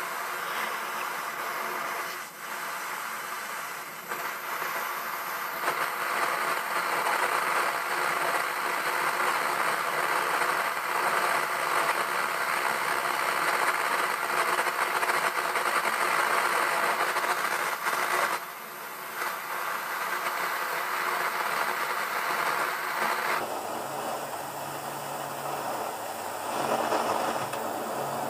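LPG heating torch burning steadily, its gas flame giving a constant hiss as it heats copper in a covered crucible. The hiss dips briefly a few times and changes in tone about 23 seconds in.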